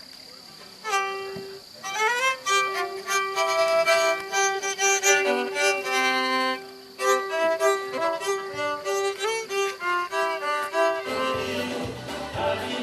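A fiddle playing a quick folk melody of short, clear notes, beginning about a second in with an upward slide. Near the end, other instruments join underneath with a fuller, lower sound.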